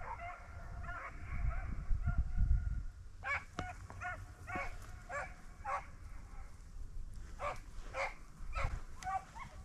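Beagles baying on a rabbit's trail: several voices overlap for the first three seconds, then separate bays follow about every half second. Wind rumbles on the microphone during the first few seconds.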